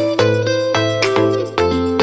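Background music: a light melody with notes changing every quarter to half second over a steady bass line.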